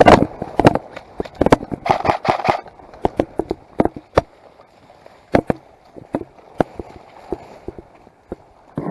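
Airsoft gunfire during a firefight: sharp single pops of shots at irregular intervals, some in quick clusters. There is a louder rush of noise right at the start and again about two seconds in, and the shots thin out after about four seconds.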